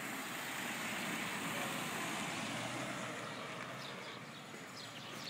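Street traffic: a car driving past, its rushing noise swelling and then fading.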